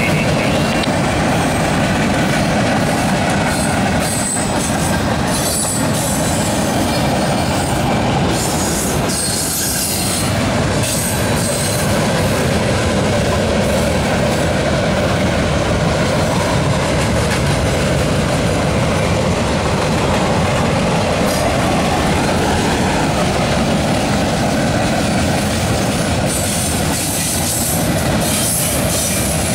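Freight cars of a mixed manifest train rolling steadily over a steel girder bridge: continuous steel wheel-on-rail noise from the passing boxcars and tank cars.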